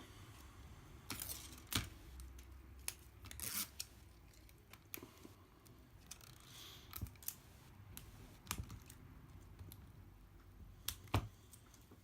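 Scattered light clicks, taps and short rustles of adhesive tape being handled and peeled from its backing on an iPad mini's screen, with a louder click near the end.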